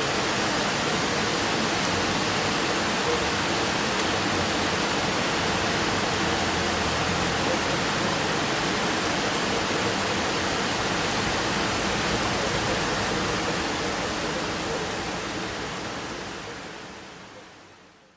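Steady rainfall, an even hiss of many drops with no single drops standing out, fading out over the last few seconds.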